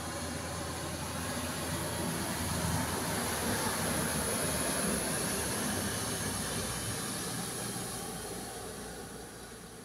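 Steady rushing hiss of heavy rain and floodwater, with a car ploughing through the flooded road: the noise swells for a few seconds in the middle and eases off near the end.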